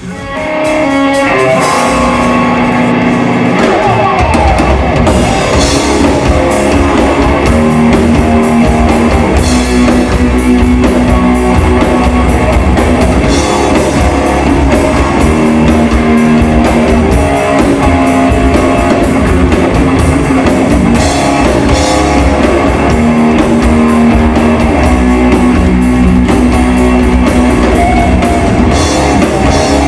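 Loud rock music from a band of electric guitar, bass and drum kit. The low end fills in about four seconds in.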